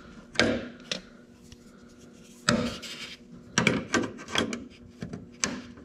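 Flathead screwdriver scraping and prying at a plastic grille retaining tab, pressing it down to release the old grille. Several short scrapes and clicks of metal on plastic, spaced unevenly.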